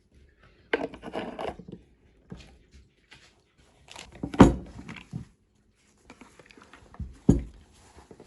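A few knocks with rustling between them; the loudest knock comes about halfway through, and a second sharp knock comes near the end.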